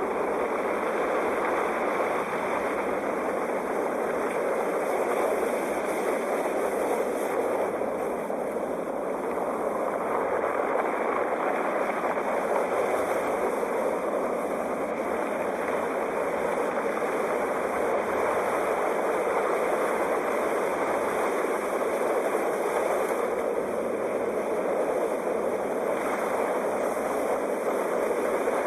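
Sea waves: a steady rush of surf that swells and eases slowly.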